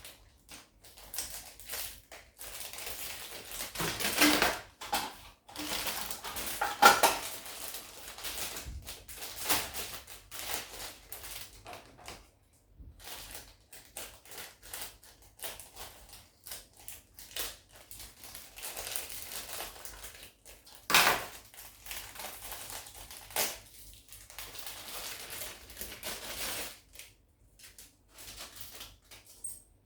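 A Gundam plastic model kit being opened and handled: irregular crinkling and rustling of plastic packaging, with clicks and clatters of the hard plastic parts.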